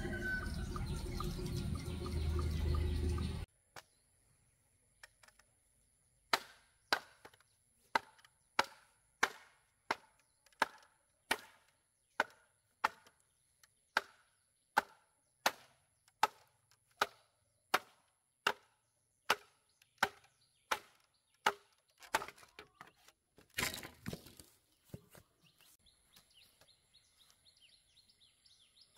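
A loud, low steady noise cuts off abruptly about three and a half seconds in. A few seconds later a blade chops wood in even strokes, about three every two seconds, for some fifteen seconds, ending in a louder, messier flurry of hits.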